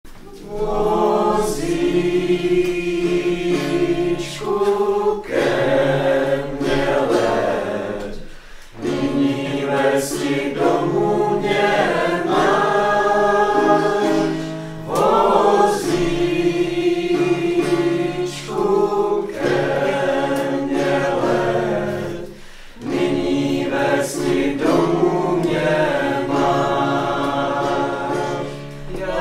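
A choir singing together in long held notes, its phrases broken by two short pauses.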